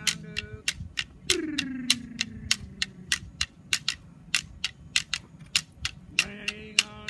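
A man singing an Aboriginal ceremonial welcome song, with held notes and a long falling phrase, over a steady beat of clapsticks at about three to four clicks a second.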